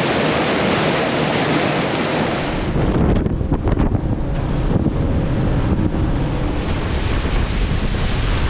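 Wind buffeting the microphone over rushing water and surf. About three seconds in, a bright, even rush gives way to heavier, gusty low buffeting.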